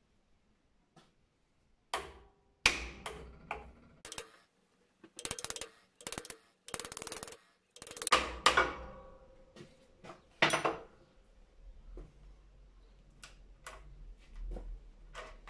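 Hammer striking the steel crown wheel and carrier of an Isuzu rear differential held in a vise, to free the old ring gear. A run of sharp blows starts about two seconds in and lasts about nine seconds, with the metal ringing after the heavier strikes. Lighter metal clicks follow as the crown-wheel bolts are handled.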